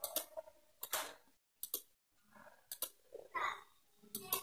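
Computer mouse button clicks, short and sharp, mostly in quick pairs about once a second, with a brief faint sliding sound a little after three seconds.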